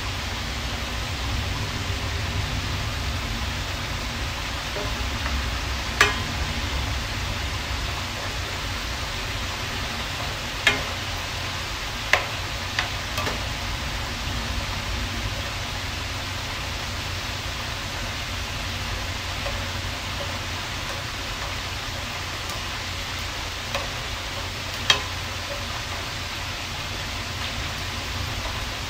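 Shrimp sizzling steadily in a hot frying pan, with metal tongs clacking sharply against the pan a handful of times as the shrimp are turned.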